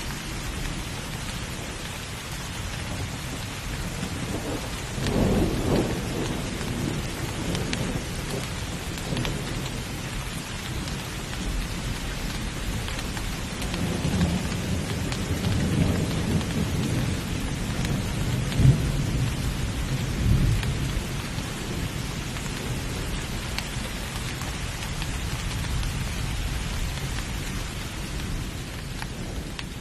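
Steady heavy rain with thunder: a rumble swells about five seconds in, and a longer rolling rumble builds from about fourteen seconds, with a sharp crack near nineteen seconds.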